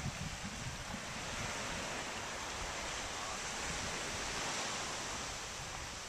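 Small waves washing onto a sandy beach: a steady hiss of surf, with some wind rumbling on the microphone at the start.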